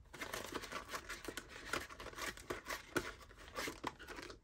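Paper envelopes and cash bills rustling and crinkling as they are handled, with many small taps and clicks.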